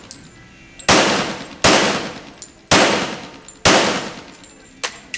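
Semi-automatic pistol firing four shots, roughly one a second, each with a long echo off the walls of an indoor range, followed near the end by two fainter sharp cracks.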